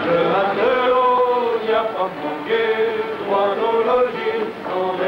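Music with a man singing a melody, his notes held and gliding.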